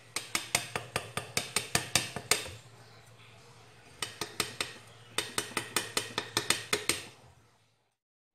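Small metal mesh sieve tapped rapidly against a stainless-steel mixing bowl to sift wheat flour: quick ringing metallic clinks, about five a second, in runs with a short break about two and a half seconds in.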